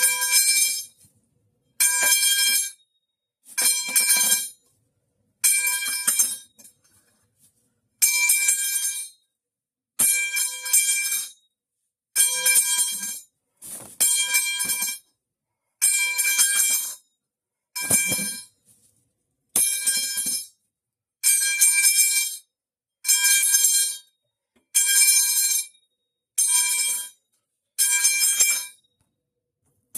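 Metal pipe sound effect, a dropped metal pipe clanging on a hard floor and ringing, played again and again: about sixteen clangs, each ringing for about a second, with short silences between.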